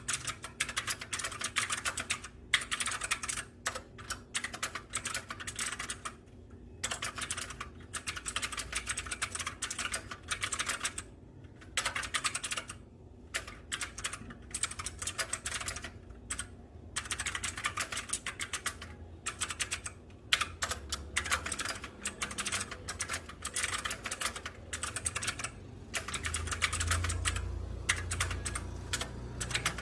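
Typing on an HP GK400Y mechanical keyboard fitted with green-grey keycaps: fast runs of key clicks broken by short pauses.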